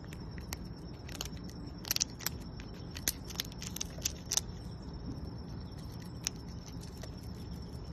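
Groundhog chewing food held in its paws, making small irregular crunching clicks, over a faint steady high-pitched tone.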